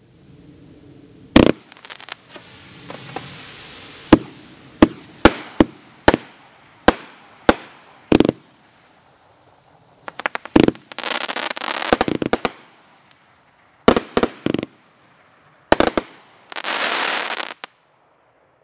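Cutting Edge CE1000 multi-shot firework cake firing: over a dozen sharp bangs, several in quick succession, the loudest about a second and a half in. There are two stretches of dense crackling, one about eleven seconds in and another near the end.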